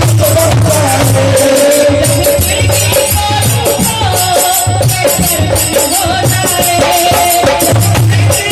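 Instrumental devotional bhajan music: a wavering melody line over repeated low drum strokes and steady shaken, rattle-like percussion.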